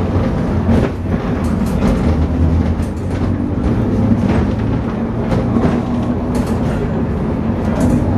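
Vintage wooden tram running, heard from inside the car: a steady low rumble and motor hum, with irregular clicks and rattles along the way.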